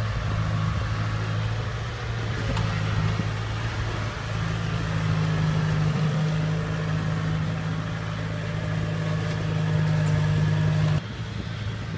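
Diesel engine of a Kubota DC-70 tracked combine harvester running steadily as the machine travels, a constant hum that gets a little louder about four seconds in and drops off abruptly near the end.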